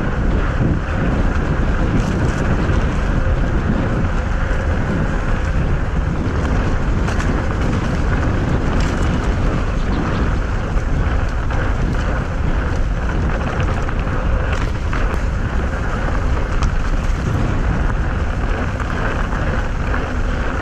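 Wind buffeting the microphone of a helmet-mounted camera while a mountain bike rolls along a dirt track, with steady tyre and trail noise and a few short clicks from the bike and ground.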